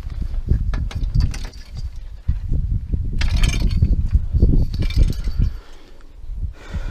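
Hands-on assembly noise: metal parts knocking and clinking over an uneven low rumble, with a brief rustling hiss about three seconds in. The rumble eases off near the end.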